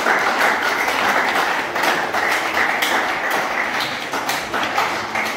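Audience applauding loudly, many hands clapping at once, easing off slightly toward the end.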